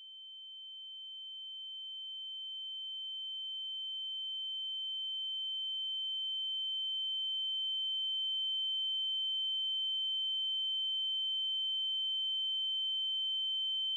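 A single high-pitched electronic ringing tone, used as a film sound effect, swells slowly louder over the first eight seconds or so, then holds steady and cuts off suddenly near the end.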